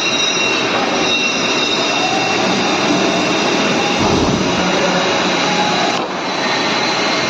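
CNC machine running, a steady loud machining noise with several high steady tones over it. The sound dips and changes character briefly about six seconds in.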